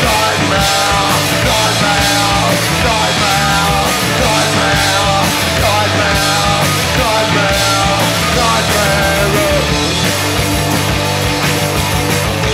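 Punk rock band playing live: distorted electric guitars, bass and drums driving on, with the singer's last shouted 'nightmare' about three seconds in, then an instrumental stretch.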